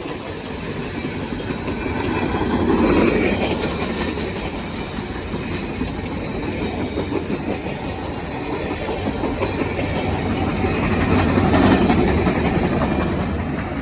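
Freight train cars rolling past, their steel wheels clacking over the rail joints with a continuous rumble that swells twice, a few seconds in and again near the end.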